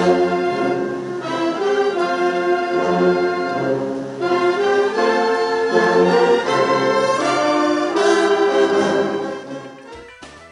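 Military brass band playing a slow, solemn piece: held brass chords that change about once a second, fading out near the end.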